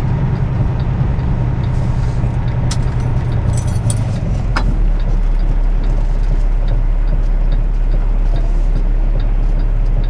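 Semi truck's diesel engine running, heard from inside the cab as the truck creeps forward. There are a few sharp clicks and a brief hiss near the middle, and about four and a half seconds in the engine note settles into a steady low drone.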